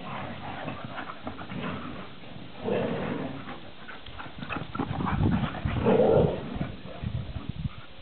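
Greyhounds at play: dogs vocalizing, loudest about three seconds in and again about six seconds in, among quick paw thuds and clicks as they run.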